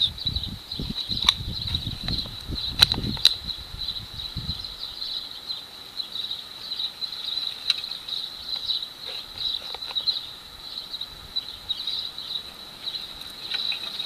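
Insects chirring steadily in a high, even band. Low rumbles and a few sharp clicks or knocks come in the first four or five seconds, with a few fainter clicks later.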